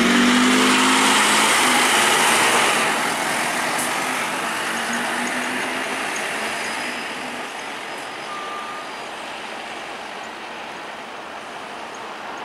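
Scania N230UD double-decker bus's five-cylinder diesel engine pulling away from a stop and driving off. The engine is loudest in the first couple of seconds and then fades steadily as the bus moves away.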